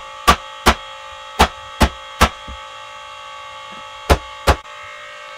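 A hammer strikes wood in quick blows about 0.4 s apart, five in the first two seconds and then two more after a pause, over a steady electrical hum.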